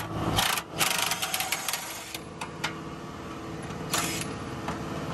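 Electric impact wrench hammering in short bursts on the driveshaft U-joint bolts at the rear axle's pinion yoke, with sharp clicks of metal on metal between bursts.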